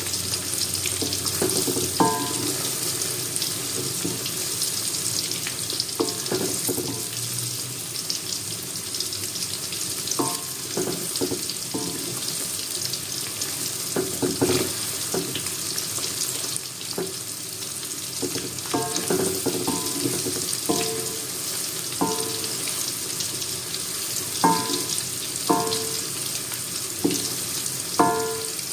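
Tofu frying in hot oil with a steady sizzle. Short ringing clinks of a utensil against the pan come every few seconds, more often in the second half.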